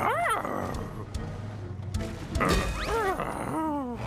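Animal-like cartoon vocal noises: a short yelp right at the start, then a string of rising and falling yelps and whines about two and a half seconds in, over background music.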